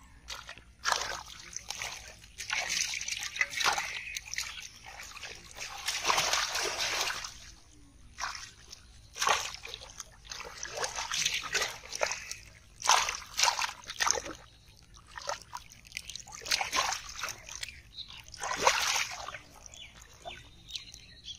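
Shallow muddy water splashing and sloshing in irregular bursts as hands thrash in it to catch carp.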